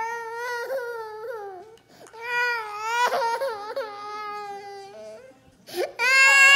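A toddler crying in long, wavering wails: two cries muffled with her face pressed into a couch cushion, then a sharp breath and a much louder wail near the end as she lifts her head.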